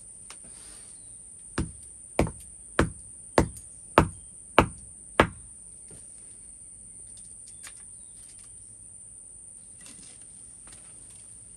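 Seven hammer blows in a steady rhythm, about 0.6 s apart, on a small piece of red-hot decarburized cast iron resting on a stone anvil, forging it flat. A steady high-pitched insect buzz runs underneath.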